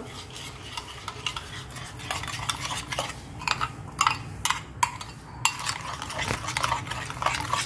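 A metal spoon stirring curd and spice powders in a glass bowl, with irregular clinks and taps of the spoon against the glass.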